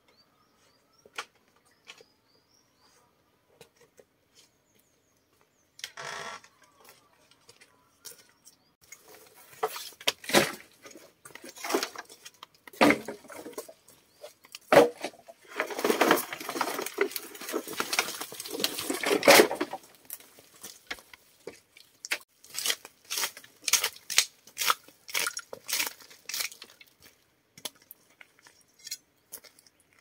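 Objects being handled by hand: scattered light knocks and clicks, a long stretch of scraping and rustling in the middle, then a run of quick light knocks near the end.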